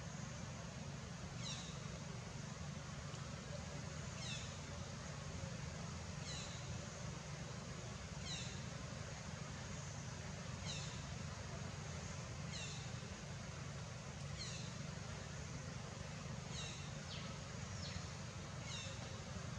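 An animal's short, high-pitched calls, each falling in pitch, repeated about every two seconds over a steady low rumble.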